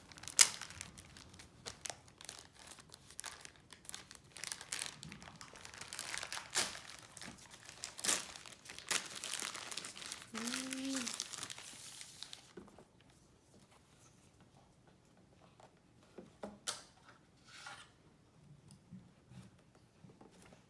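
Packaging being opened by hand: wrapping crinkles and tears with many sharp crackles for about twelve seconds. After that there are only a few scattered rustles and clicks.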